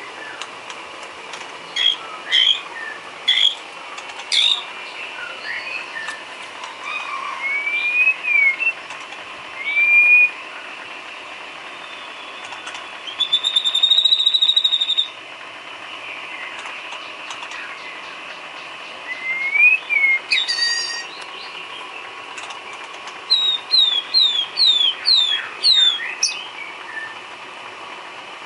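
White-rumped shama singing a varied song of clear whistled notes and pitch glides, with a steady trill lasting about two seconds midway and a quick run of repeated falling notes near the end.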